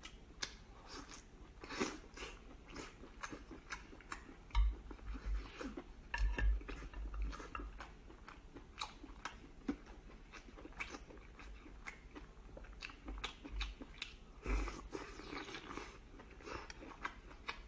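Close-up chewing and lip-smacking of cooked sea snail (conch) meat, a steady run of irregular wet clicks. There are a few dull low thumps in between.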